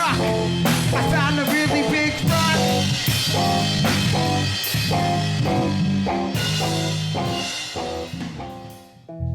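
Live band music with drum kit, guitar and bass playing an instrumental passage without rapping, which thins out and fades down near the end.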